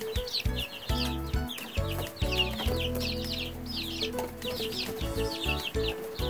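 A brood of three-week-old laying-hen chicks peeping nonstop: many short, high, falling peeps overlapping. Background music with steady held low notes runs underneath.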